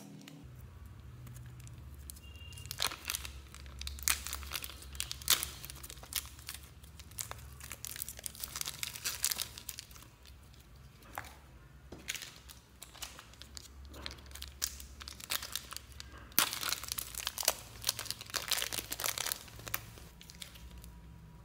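Sticky slime squeezed and pulled apart by hand: wet crackling, clicking and popping in several runs. The loudest run comes a few seconds before the end.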